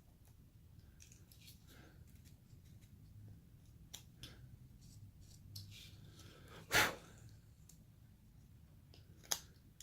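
Hand carving blade cutting and paring basswood: a scatter of small snicks and scrapes as chips come away, with one louder crack about seven seconds in and a sharp click shortly before the end.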